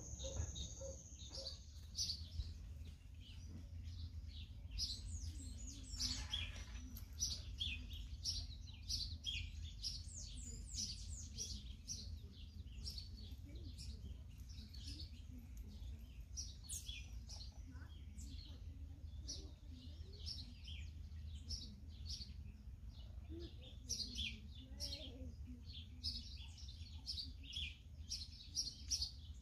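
Many small birds chirping, short high calls in quick, overlapping runs, over a steady low hum.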